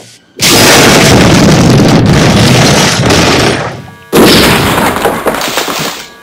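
Two loud cinematic boom sound effects. The first hits suddenly about half a second in and fades away over about three and a half seconds. The second hits just after four seconds in and fades out over about two seconds.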